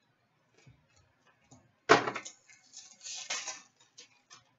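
Trading cards being handled and a foil card pack torn open: a sharp click about two seconds in, then the wrapper crackling for a second or so, with light ticks of cards being set down.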